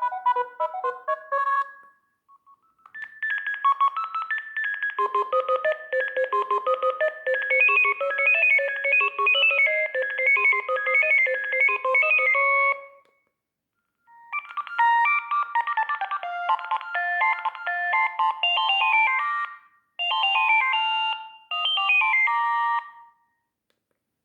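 Sagem myX-3 mobile phone playing its built-in electronic ringtone melodies one after another. One tune ends about two seconds in, a longer one plays to about thirteen seconds, another follows after a short pause, and two short phrases come near the end.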